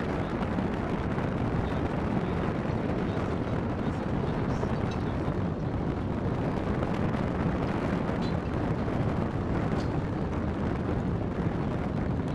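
Wind buffeting the microphone: a steady, loud low rumble that never lets up.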